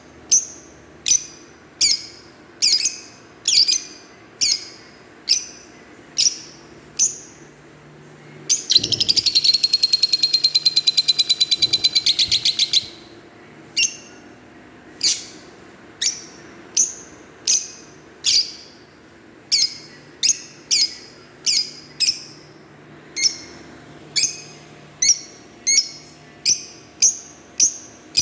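Fischer's lovebirds giving sharp, high chirps about once every second. About nine seconds in, this gives way to a fast, loud chattering trill lasting about four seconds, then the chirps resume.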